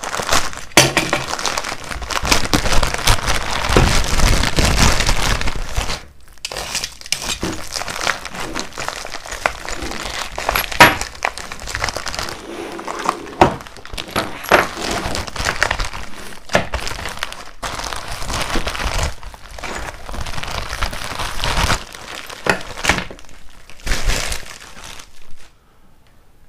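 Packaging of a boxed bolt set being opened and unwrapped: crinkling and crackling with sharp snaps and clicks. It is loudest and most continuous for the first six seconds, then comes in shorter bursts, and dies down near the end.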